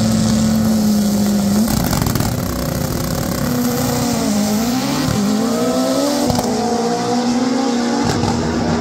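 Drag racing cars' engines held at high revs on the start line with a steady drone, then launching and accelerating hard down the strip with rising engine pitch.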